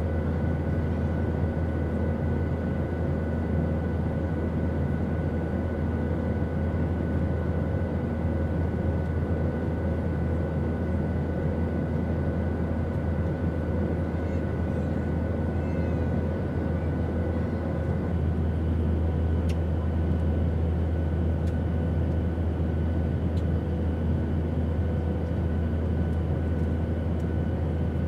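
Airplane cabin noise in flight: a steady, even rush with a strong low rumble and faint steady whine tones, which shift slightly about eighteen seconds in, with a few faint ticks.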